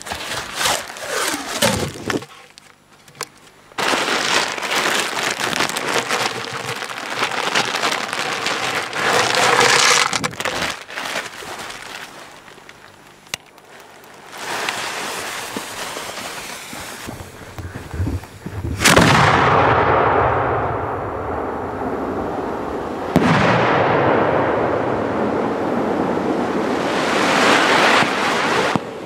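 Fireworks going off: a sudden loud bang about two-thirds in, then a long loud rushing hiss, and a second sudden burst a few seconds later. Before that come rustling and handling noises.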